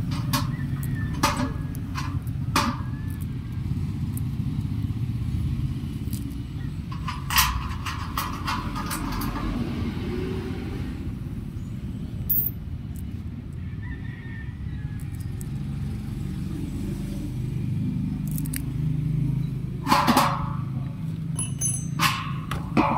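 Scattered sharp metallic clicks and knocks of nuts, washers and a bolt being handled and fitted to a satellite dish's metal feed arm, the loudest about twenty seconds in. A steady low rumble runs underneath.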